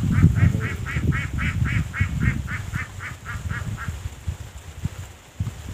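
A duck quacking in a quick run of about fifteen quacks, about four a second, fading away after about three seconds, under a low rumble.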